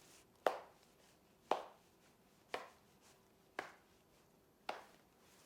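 Five light taps about a second apart: a finger tapping on a counting board, one tap for each item pointed at as it is counted.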